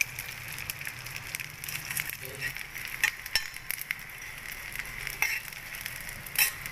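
Edible gum (gond) pieces frying in hot ghee in a stainless steel pan, sizzling and crackling as they puff up. A steel spoon stirs them, scraping against the pan with a few sharper clinks, about three seconds in and near the end.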